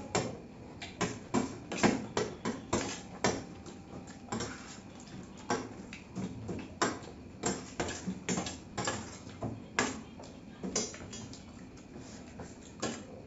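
Steel spoons scraping and clinking against steel plates, mixed with the chewing of puffed rice (muri) with ghugni: a run of short, irregular clicks and crunches, several a second.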